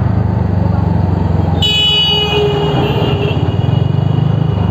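Scooter engine running with road and wind noise as it rides along in traffic; a vehicle horn honks about a second and a half in, sounds for about a second and trails off.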